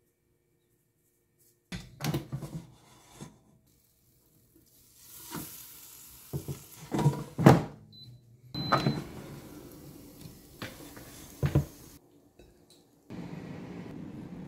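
Kitchen knocks and clatter, then two short high beeps from an air fryer's control panel about eight seconds in, followed by the fryer running with a steady whoosh for a few seconds. A steady low hum comes in near the end.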